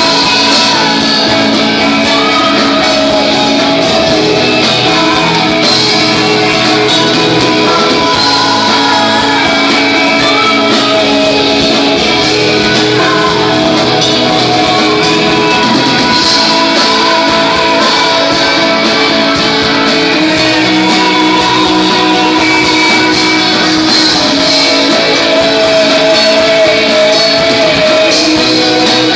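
Live rock band playing loud, with guitars to the fore.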